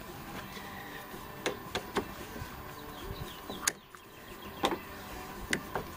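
Scattered sharp clicks and knocks, seven or so at uneven spacing, as a hand tool pries and beats at the old rigid plastic bushing on a Jeep TJ front seat's slider track to break it loose.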